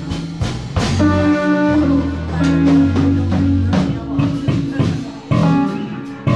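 Live band playing at a sound check: amplified guitar chords and bass notes with drum hits.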